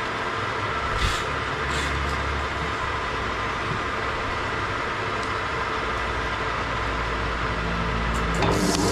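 Metal lathe motor running with a steady hum while abrasive cloth is held against the turning wooden workpiece, with a couple of short sanding rasps in the first two seconds. Near the end the hum gets louder and takes on a different pitch.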